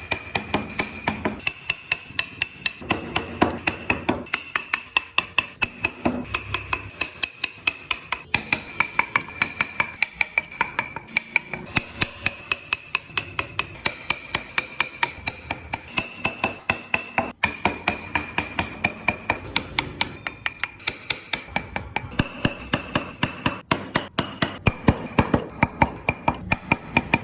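Mallet striking a carving chisel into wood in a steady run of sharp taps, about three to four a second.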